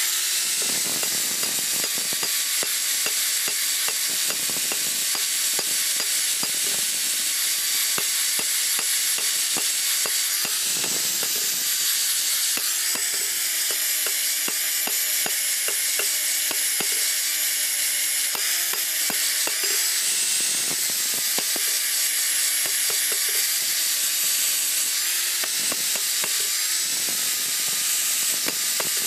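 Angle grinder grinding a steel knife blade: a steady high hiss of the disc on the steel over the motor's whine, whose pitch wavers slightly as the grinder is pressed into the work.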